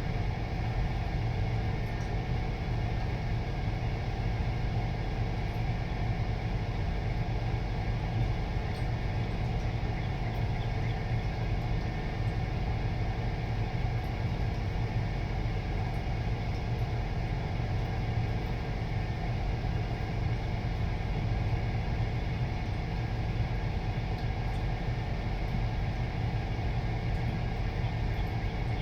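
Steady low mechanical hum made of several constant tones, unchanging in level.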